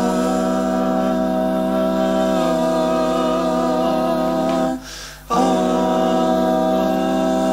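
Wordless a cappella vocal harmony: voices hold sustained chords that shift now and then, with a brief break about five seconds in.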